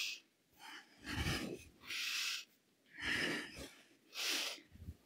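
A woman breathing hard during a squat and knee-raise exercise: five quick, noisy breaths, about one a second. Her breathing is quickened by the effort.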